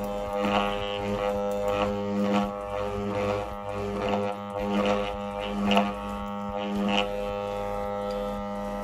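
Homemade armature growler humming steadily on AC mains, a deep electrical drone, with a steel feeler strip buzzing against the armature core in short rattling bursts as the armature is turned on the growler.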